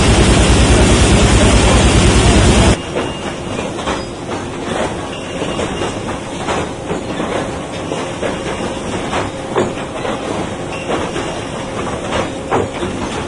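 Sawmill conveyor and roller-chain machinery running, with boards rattling and knocking as they are carried along. A loud, dense machine noise with a fast low pulse cuts off abruptly about three seconds in, giving way to quieter continuous clatter with scattered knocks.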